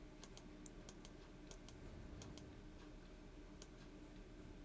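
Near silence broken by about a dozen faint, irregular clicks of a computer mouse as the page is scrolled.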